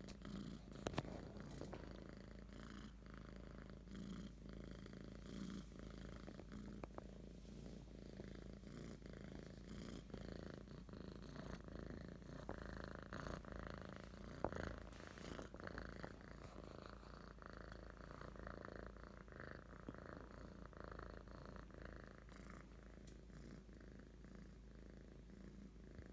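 Kitten purring steadily, with a few brief clicks and rustles, the sharpest about a second in and around the middle.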